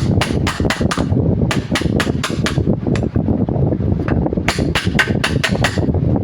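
Hammer strikes on metal in three quick runs of about six blows each, roughly five blows a second, over a steady low rumble.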